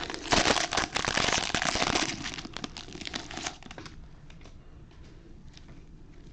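A trading card pack wrapper being torn open and crinkled: loud crackling rustle that dies down about three and a half seconds in, leaving faint ticks as the cards are handled.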